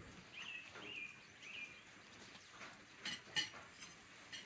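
A small bird chirps three times in quick succession, then tableware clinks twice a little after the middle, the second clink the loudest sound.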